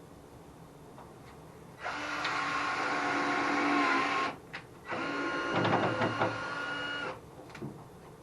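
Cordless drill-driver driving screws into wood, two bursts of steady motor whine of about two seconds each, the pitch dipping as the first screw seats.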